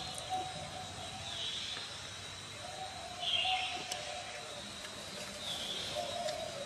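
Outdoor ambience: a short high call repeating about every two seconds over a steady thin high tone, with a wavering lower hum coming and going.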